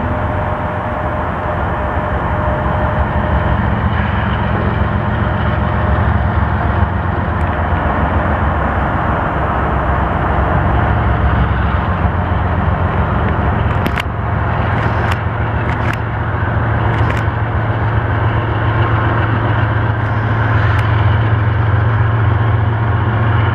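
Canadian Pacific freight diesel locomotives running slowly past, a steady deep engine drone. A few sharp clicks come about two-thirds of the way through.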